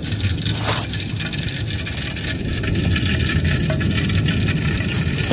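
Flowing river water, a steady rush with a low rumble beneath it.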